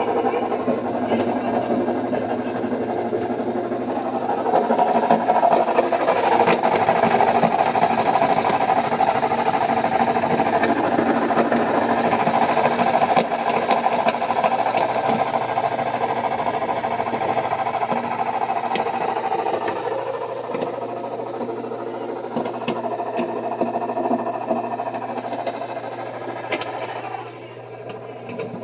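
Samsung washer-dryer in its spin cycle, making a loud steady mechanical running noise that the owner puts down to a worn drum bearing on the tripod (spider) shaft. It is loudest for the first half, eases off, then drops sharply near the end.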